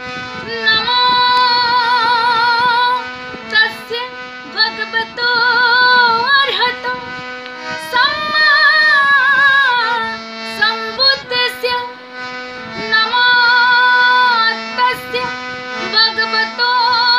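A woman singing a Buddha vandana, a Buddhist devotional song, in long held phrases with vibrato and sliding notes, over a steady instrumental backing.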